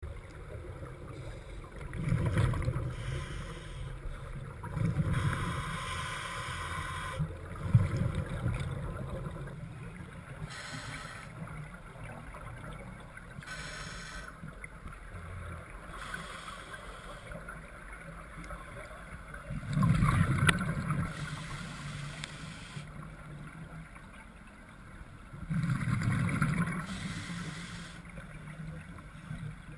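Scuba divers exhaling through their regulators underwater, their bubbles bursting out with a gurgling rumble in irregular bursts several seconds apart, over a steady low underwater rumble.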